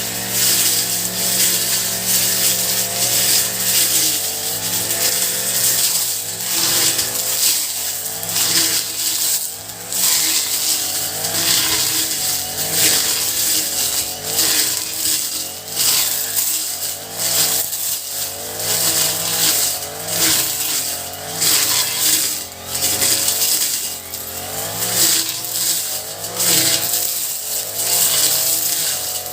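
Honda four-stroke brush cutter engine running at high speed with a loud, steady hiss, its pitch wavering up and down, most noticeably near the end.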